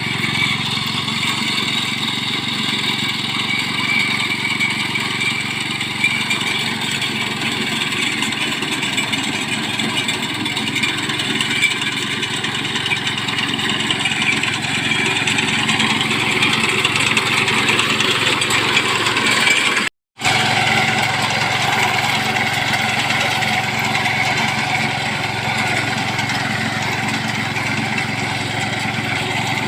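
Honda 5 hp petrol engine of a rice harvesting machine running steadily at a constant speed. About two-thirds of the way through, a brief cut to silence interrupts it before it carries on unchanged.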